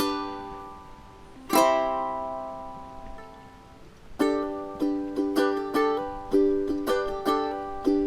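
Background music on a plucked string instrument: two chords left to ring out, then a steady rhythm of strummed chords from about four seconds in.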